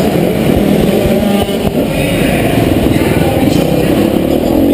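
Motocross bike engine heard close up from on the bike, revving up and down as the throttle is worked through the turns, with a brief drop in level about a second and a half in.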